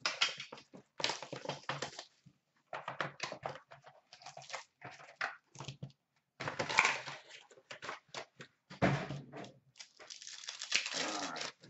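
Hands opening a cardboard hockey-card hobby box and its card pack: irregular rustling, scraping and handling noises, with a louder burst about seven seconds in and a longer stretch of crinkling near the end as the pack wrapper is worked open.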